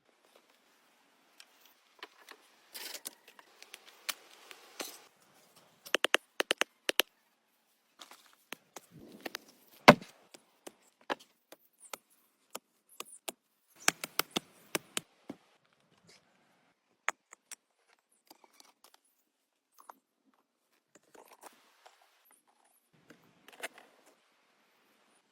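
Wood being worked by hand: scattered sharp knocks and clicks, with quick runs of taps about six and fourteen seconds in and one heavy thump about ten seconds in, between stretches of rustling.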